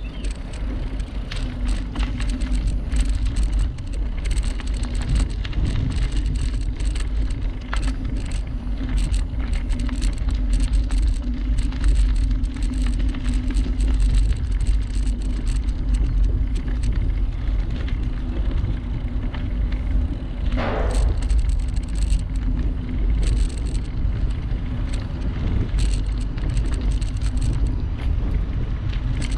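Bicycle rolling along a canal towpath: a steady tyre hum with constant small rattles and clicks from the bike, over a low rumble. A short higher-pitched sound cuts in about two-thirds of the way through.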